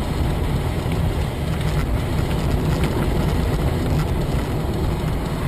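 Steady low rumble of a moving vehicle, engine and road noise, with no crash impact.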